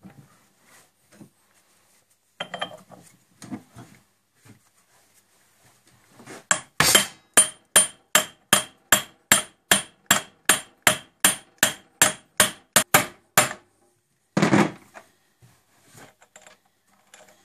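A hammer tapping parts of a lathe headstock's spindle assembly into place: a steady run of about twenty quick, sharp strikes, roughly three a second, then one more blow about a second after they stop. A few faint clinks of handled parts come before the tapping.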